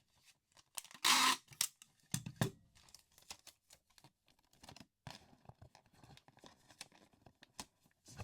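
Packing tape pulled off its roll with a loud rasp about a second in, then scattered clicks and rustles of a cardboard box being handled and taped.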